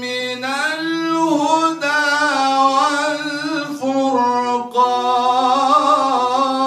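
A man's solo melodic Quran recitation, chanted in long held notes that waver and ornament in pitch, in several phrases broken by short pauses for breath.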